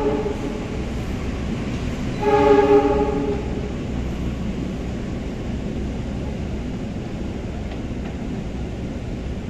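Train horn giving two short blasts: one cuts off just after the start, and a louder one comes about two seconds in. A steady low rumble of a rail vehicle's engine runs underneath.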